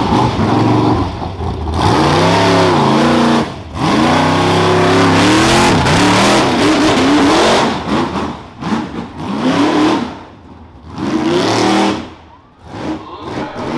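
Rough truck's engine revving hard on the off-road course, its pitch rising and falling again and again. It eases off briefly twice in the second half.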